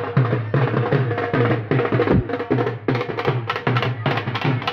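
Dhol and tasha drums playing a fast, steady beat.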